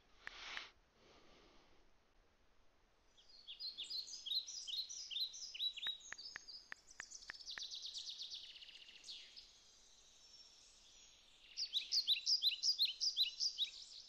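A songbird singing runs of quick, downward-sliding chirps, twice over with a pause of about two seconds between. Partway through the first run comes a quick series of about seven light taps on a phone's keypad.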